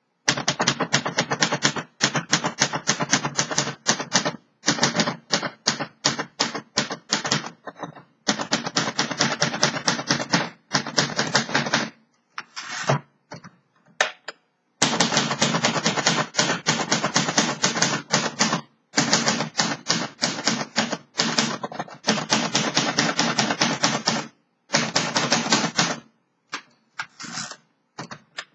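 A 1953 Royal Quiet De Luxe manual portable typewriter being typed on: fast runs of sharp key strikes in long bursts, broken by short pauses and a stretch of a few single strokes about halfway through.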